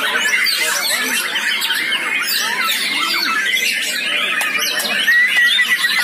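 Many caged songbirds singing at once, a dense overlapping mix of chirps, whistles and trills. About five seconds in, one bird starts a fast, even trill on a single high note.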